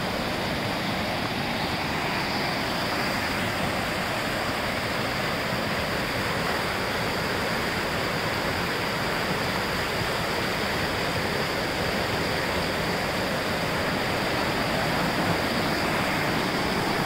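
Fast, swollen river running in whitewater, rushing steadily with an even, unbroken noise.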